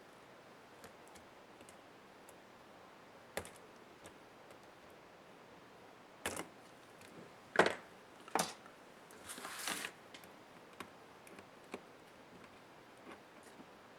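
Sparse clicks and taps of small laptop parts and tools being handled during disassembly, with a sharper knock a little past the middle, two more close by, and a brief scrape soon after.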